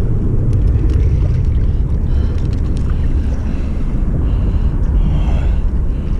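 Wind buffeting the microphone: a loud, steady rumble, with a few faint clicks.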